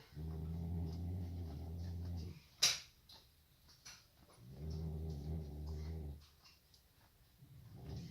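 Nubian buck goat snoring in deep sleep: two long, low snores of about two seconds each, roughly four seconds apart. A single sharp click falls between them.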